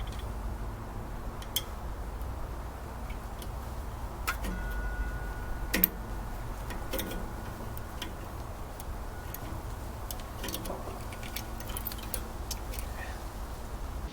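Irregular light clicks and taps, like small metal engine parts and tools being handled on a bench, over a steady low hum. One sharper click near the middle stands out.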